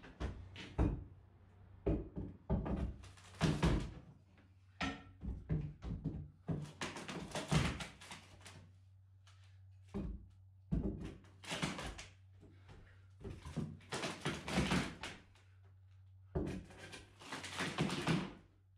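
Old timber floorboards being prised up with a steel crowbar: irregular clusters of thunks and knocks, with longer scraping noises of about a second as boards are levered loose.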